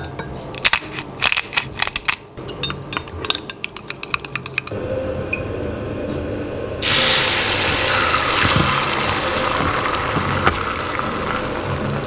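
Rapid, irregular clicking at the bowl for the first few seconds, then a low steady hum. About seven seconds in, beaten egg with scallions hits a hot rectangular tamagoyaki pan and starts sizzling loudly and evenly.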